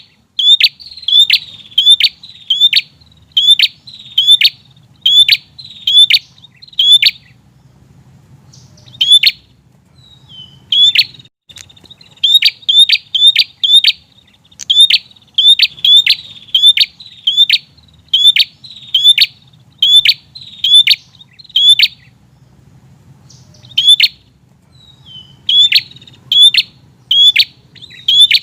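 Prinia (prenjak) calling insistently: a string of sharp, repeated chirps, about two a second, in bouts broken by short pauses. A faint low hum runs underneath.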